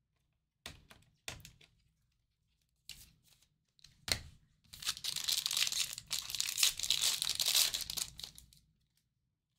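A trading-card pack wrapper being handled and torn open: a few short taps and rustles, then about four seconds of steady crinkling and tearing.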